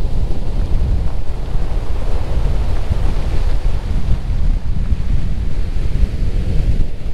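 Wind buffeting the microphone over small waves washing up onto a pebble beach, a steady low rumble with the hiss of surf.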